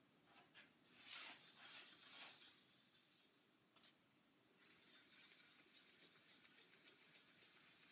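Faint scratchy rubbing of fine wet sandpaper, likely 2000 grit, stroking across a waterborne lacquer guitar finish. A few strokes come in the first couple of seconds, with a small tick a little later, then a steady faint hiss.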